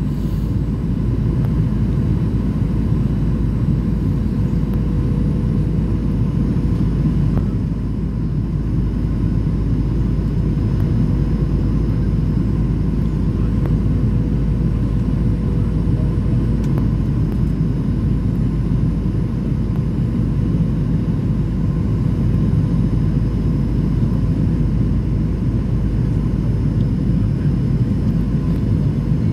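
Boeing 737 cabin noise: the steady low roar of the jet engines and airflow, with a faint constant hum.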